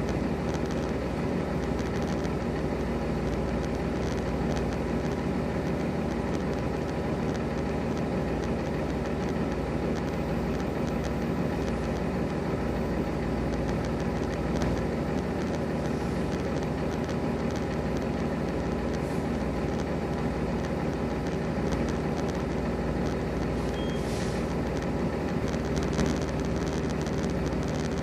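Semi-truck diesel engine idling steadily, with an even drone that doesn't change in pitch.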